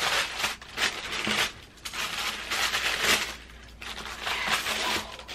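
Tissue paper wrapping in a shoebox crinkling and rustling as hands push through it, in repeated bursts that grow fainter near the end.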